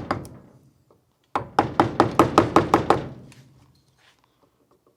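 Mallet tapping a carving gouge into green wood in quick, light strikes, about six a second. A short run ends just after the start, and a run of about ten taps comes in the middle.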